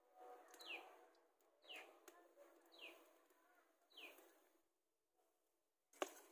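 A bird calling four times, each call a short note sliding downward, about a second apart, over the faint sizzle of pitha frying in oil in a karai. About six seconds in, a metal spatula knocks once against the pan.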